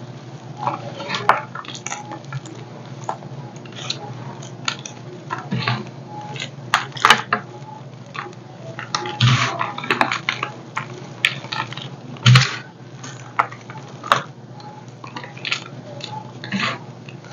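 Bare hands squeezing and crushing dyed gym chalk, chunks and powder crumbling between the fingers: irregular crunching and crackling, with two heavier crunches about nine and twelve seconds in.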